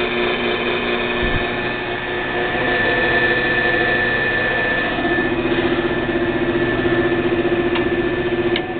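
The 115-volt electric motor of a 7" x 12" horizontal bandsaw running steadily with a hum. It runs free, not driving the gearbox, whose pulley is missing. About five seconds in the hum's tone changes and takes on a fast throb.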